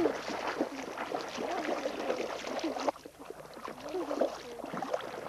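Water splashing and lapping as a swimming dog paddles up alongside a small boat, with a brief lull about three seconds in.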